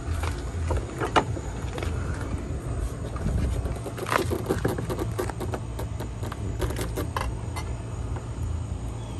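Footsteps on a concrete sidewalk, with scattered clicks and scrapes over a steady low rumble.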